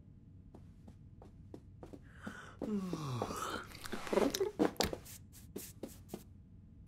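Cartoon sound effects: a run of soft footstep ticks from shuffling slippers, then a drawn-out groan that falls in pitch like a sleepy yawn, a brief mumble, and more shuffling steps near the end.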